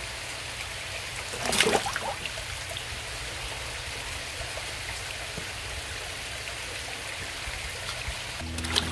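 Koi pond water running and trickling steadily, with a brief splash of water about a second and a half in.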